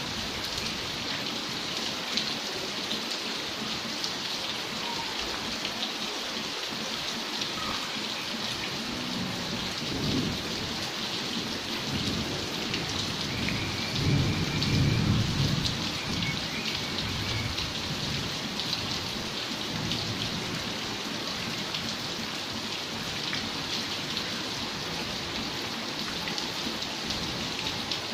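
Steady rain falling, with drops hitting the wet glass louvres close by. A low rumble of thunder builds about a third of the way in and is loudest around the middle.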